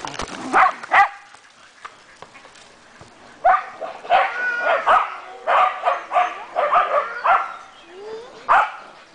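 Shetland sheepdogs barking in quick runs of sharp, high barks and yips, with a lull of about two seconds near the start.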